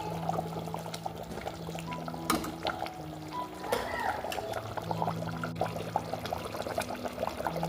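Smoked pork and anishi curry bubbling and crackling in the pan, a dense run of small pops, with soft background music under it.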